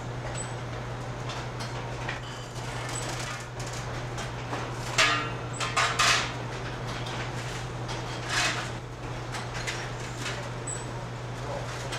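Meat-packaging conveyor running: a steady low motor hum under scattered clicks and clattering rattles, loudest in a cluster about five to six seconds in and again past eight seconds.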